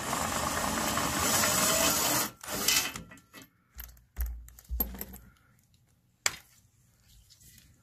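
Cordless power tool spinning a socket on a long extension, backing out the last 16 mm bolt of a front crossbar for about two and a half seconds. Then scattered knocks and a couple of low thumps as the loosened bolt and the metal crossbar plate are handled, with one sharp click near the end.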